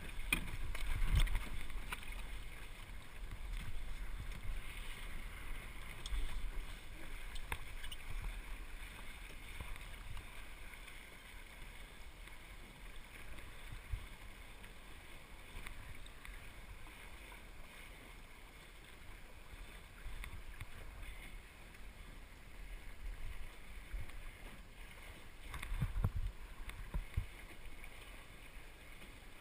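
Water washing along the hull of a small El Toro sailing dinghy under sail, with wind gusting on the microphone. The wind is strongest about a second in and again near the end. A single sharp tick comes about halfway.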